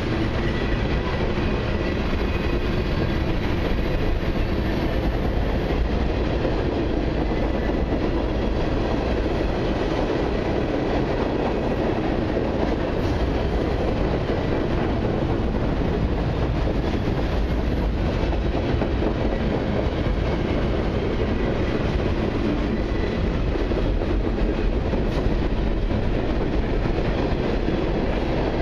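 Freight cars of a long CN mixed and autorack train rolling past steadily, their steel wheels clacking over the rail joints in a continuous rumble.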